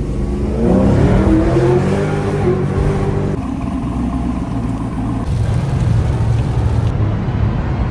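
Car V8 engine under throttle: its pitch climbs over the first second, holds, then drops about three and a half seconds in and settles lower again about five seconds in, like a car pulling through its gears. The engine is most likely the Pontiac G8 GT's 6.2-litre LS3 V8.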